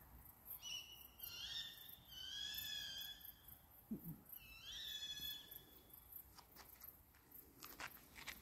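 An unseen animal screeching: four shrill, drawn-out calls, two close together at the start, a longer wavering one after them and a last one about five seconds in. A few faint clicks follow near the end.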